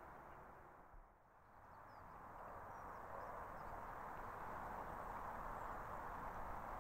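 Faint, steady outdoor ambient hiss with a few faint, high bird chirps. It dips briefly about a second in.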